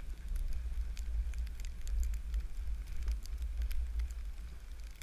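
Wind rumbling on a ski camera's microphone while skiing downhill, with scattered crackling ticks from the skis running over hard-packed snow.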